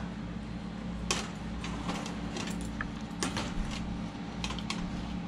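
Irregular light clicks and knocks of kitchen utensils against dishes, about eight in all, over a steady low hum.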